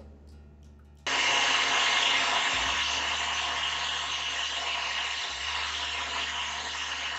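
Oster countertop blender switched on about a second in and running steadily, grinding cooked tamarind pulp with a little water.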